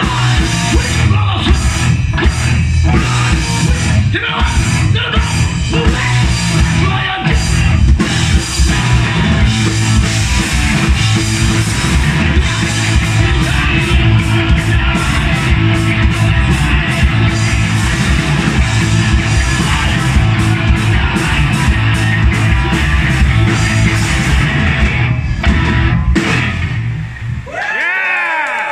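Live rock band playing loud, with distorted electric guitar, bass and a drum kit with cymbals. The song breaks off about 26 seconds in, and a few high tones that bend up and down in pitch ring on near the end.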